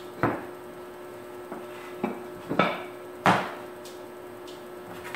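Metal rods clinking and knocking against each other and the workbench as they are handled: four or five sharp clinks with a short ring, over a faint steady hum.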